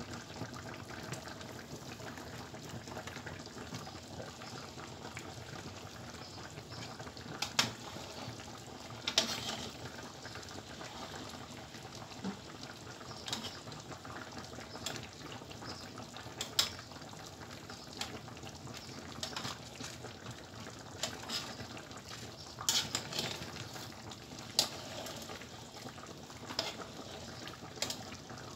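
Pots boiling on a stove top, a steady bubbling hiss, with scattered sharp clicks and taps as utensils knock against the steel pans and tray.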